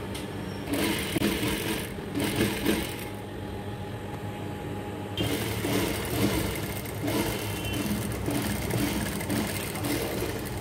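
Industrial lockstitch sewing machine running and stitching a seam in two runs, from about a second in to about three seconds and again from about five seconds on, with a brief pause between.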